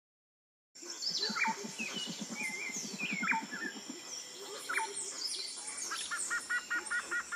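After a brief silence, a bed of birdsong: several birds chirping and whistling with short gliding calls. A low, fast rattle runs through the first few seconds, and near the end a repeated chirp comes about four times a second.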